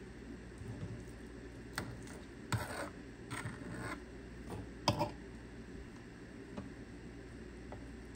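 Kitchen handling noises: a few short scrapes and knocks, the sharpest about two and a half and five seconds in, over a steady low hum.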